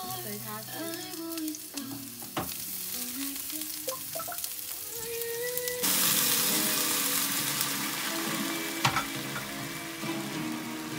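Chopped garlic and parsley sizzling quietly in oil in a frying pan. About six seconds in, wine is poured into the hot pan and the sound jumps to a loud, hissing sizzle with a couple of sharp clicks.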